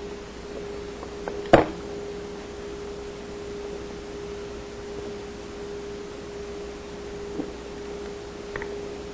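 A steady hum on one mid-pitched tone, with a sharp click about a second and a half in and a few faint clicks later, from plastic wiring connectors being unplugged inside a dishwasher door.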